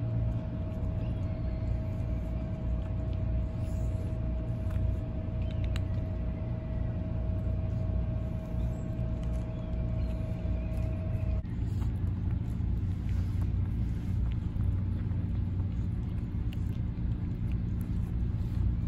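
Stray cats crunching dry kibble, faint short crunches over a low steady rumble. A faint steady hum stops about eleven seconds in.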